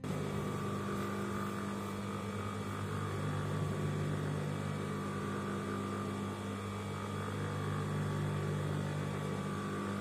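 Juki industrial sewing machine running with a steady motor hum that cuts in abruptly.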